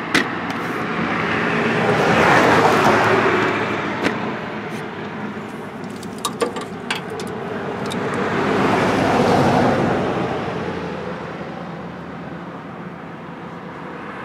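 Road traffic: two vehicles passing one after the other, each swelling up and fading away over a few seconds. A few light metal clicks and clinks of hand tools come in between.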